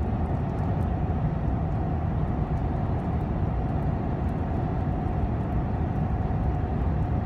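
Steady road noise inside a moving truck's cabin at highway speed: a low rumble of tyres and engine with a steady hum.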